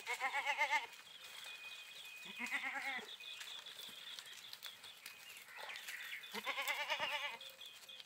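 Goats bleating: three quavering calls, at the start, about two and a half seconds in and near the end, the last the longest at about a second.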